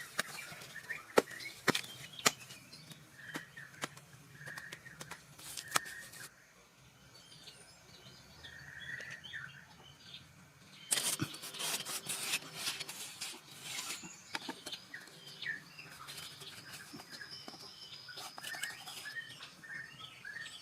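Birds chirping with short calls, under sharp knocks and clicks: a few single knocks in the first six seconds, then a dense clatter of them for about three seconds past the middle.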